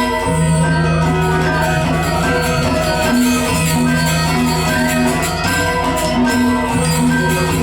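Balinese gamelan playing dance music: bronze metallophones ring in many pitched notes over long, held low tones that break off and start again every second or two.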